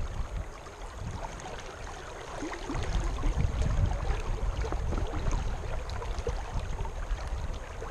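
River current rushing and splashing right by the microphone, with a low rumble of wind buffeting it.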